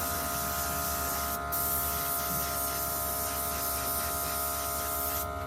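Compressed air hissing steadily from an air tool, with a brief break about one and a half seconds in and cutting off near the end.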